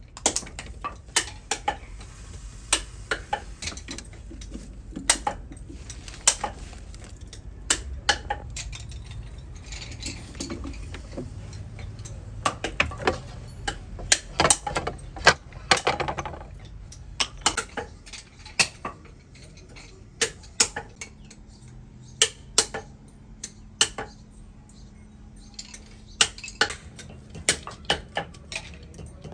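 Irregular sharp clinks and knocks of metal and wooden bobbin parts being handled and set down, over a low hum.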